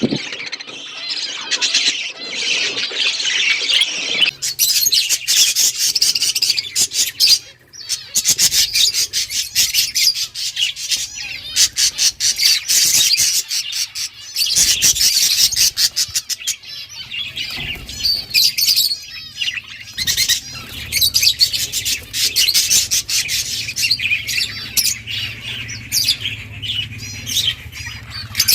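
Budgerigars chirping and squawking in a dense, continuous chatter of short, sharp calls.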